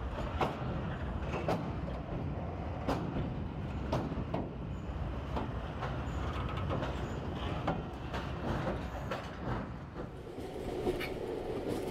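Railway carriage rolling slowly: a steady low rumble with irregular sharp clicks and knocks from the wheels and running gear, about one a second, heard from inside the coach.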